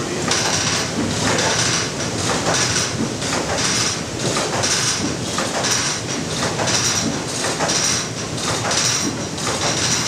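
Water-powered sawmill machinery running, a steady rumble with a clatter repeating roughly once a second.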